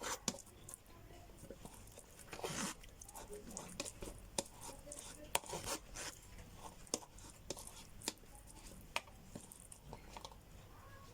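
Soft, irregular squelches and clicks of oil-soaked lemon pieces being squeezed by hand to press out the last of the oil, with a longer wet squish about two and a half seconds in.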